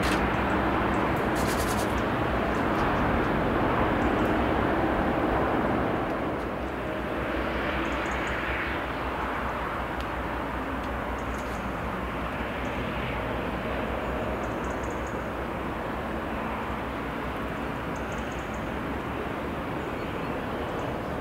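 Steady rumble of distant engines and traffic heard across the river valley, easing a little about six seconds in.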